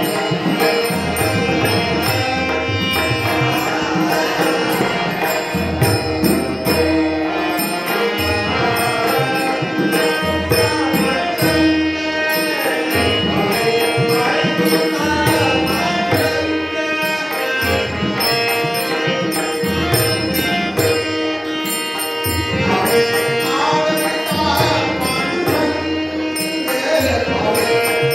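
Men singing a Hindu devotional bhajan, accompanied by sustained held notes, a drum and small hand cymbals keeping a steady rhythm.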